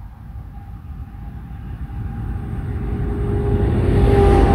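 An engine drawing nearer, its steady hum and low rumble growing louder throughout.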